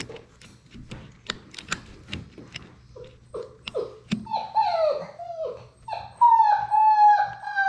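Labrador Retriever puppy whimpering and whining up close: short falling whimpers from about three seconds in, then a long, louder whine near the end. Before the whimpers, scattered clicks and knocks of a puppy mouthing the GoPro.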